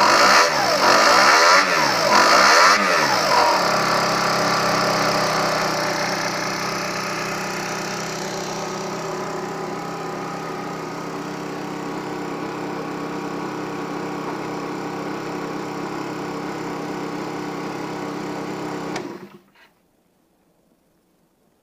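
Aprilia SR 50 R Factory scooter's 50cc two-stroke engine blipped three times at the start, dropping back to a steady idle that slowly settles. About 19 seconds in it is switched off and stops abruptly, leaving a few faint clicks.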